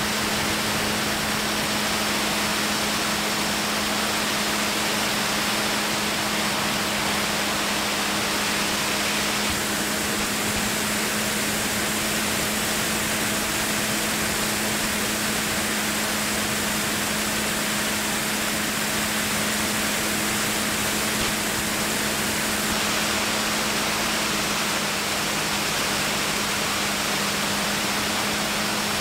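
Steady drone of a light aircraft's engine and propeller heard inside the cabin: a constant low hum under an even rush of air noise, unchanging throughout.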